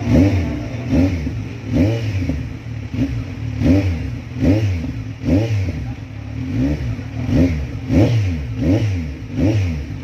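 Kawasaki Z1000 inline-four, fitted with a mid pipe and an Akrapovic-branded slip-on muffler, revved in quick throttle blips, a little more than one a second. Each one rises sharply and drops back toward idle.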